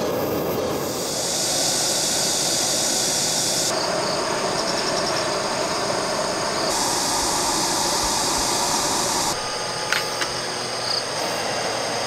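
Steady hissing of a shallow pan of budae jjigae heating on a portable gas burner, its tone changing abruptly a few times.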